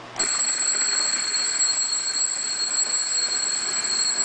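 Coin-pusher win-alarm bell, set off by a test switch, ringing loudly and without a break. It starts just after the beginning. This is the alarm that signals a win when the bonus bucket dumps its quarters.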